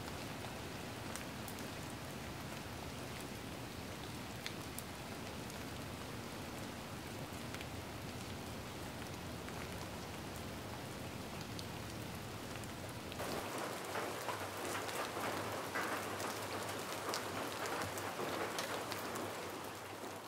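Steady rain, an even hiss with light pattering drops, growing louder and denser about thirteen seconds in.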